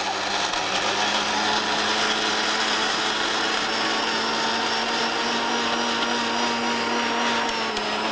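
Electric mixer grinder running steadily at full speed, grinding tomato and capsicum into a paste.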